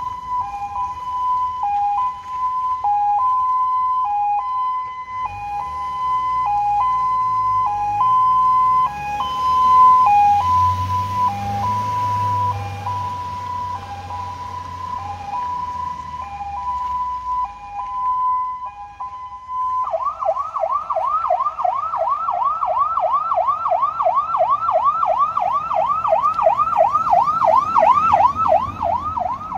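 PA300 Silverface electronic siren sounding a two-tone hi-lo pattern. About twenty seconds in it switches to a fast yelp, rising and falling three to four times a second. A car engine is heard passing in the middle.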